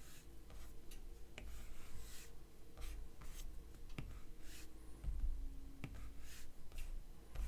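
Apple Pencil tip tapping and sliding on the iPad's glass screen while inking strokes: a handful of faint, sharp taps as the tip touches down, with soft scratchy swishes of the strokes between them.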